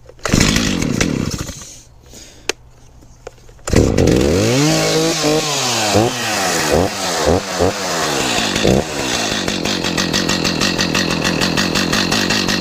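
Stihl 029 Super two-stroke chainsaw being started with the choke on: it fires briefly and dies away just after the start, then catches at about four seconds, is revved up and down several times, and settles into a steady idle.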